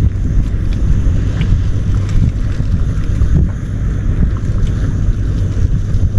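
Wind buffeting the microphone: a loud, uneven low rumble throughout, with a few faint clicks over it.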